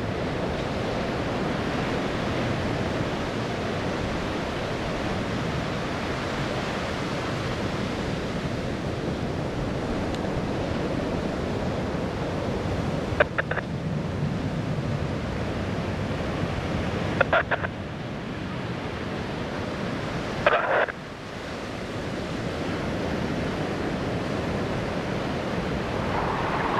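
Steady ocean surf breaking on the beach, with some wind noise on the microphone. Three brief, sharp sounds stand out, the first about halfway through and the next two a few seconds apart after it.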